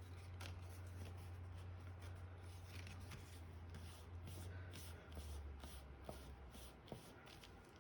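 Faint rustling and light taps of cardstock pieces being handled and pressed together while they are glued, over a low steady hum that stops near the end.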